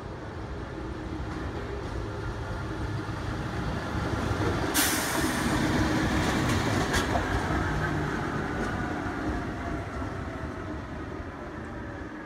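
Rhaetian Railway diesel shunting locomotive running past: engine and wheels on the rails grow louder as it comes close, then fade as it moves away, with the engine's pitch dropping as it goes. A short sharp noise about five seconds in, followed by a few fainter clicks.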